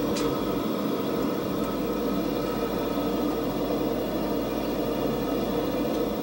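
Steady, even roar of a furnace fire.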